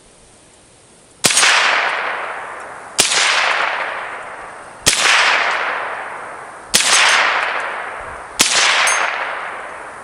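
Five .22 rimfire shots from a Ruger 10/22, one every couple of seconds, each a sharp crack followed by a long fading ring from the struck steel spinner target.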